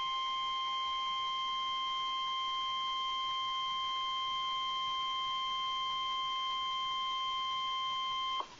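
NOAA Weather Radio 1050 Hz warning alarm tone: one steady, unwavering tone held for about eight seconds, cutting off abruptly near the end. It is the alert that switches on weather radio receivers ahead of a warning message.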